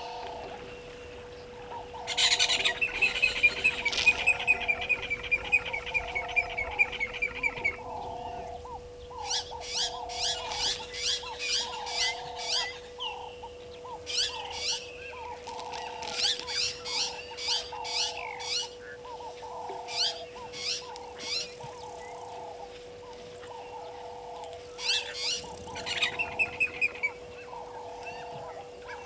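Wild birds calling: a low call repeated about once a second throughout, with several bursts of fast, high chirping and trilling, the loudest a long trill about two seconds in.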